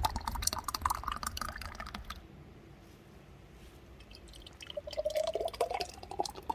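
Cooled grape molasses (dibs) being poured into jars, in two spells: the first about two seconds long, then a pause, then pouring again from about five seconds in, each rising in pitch as the jar fills.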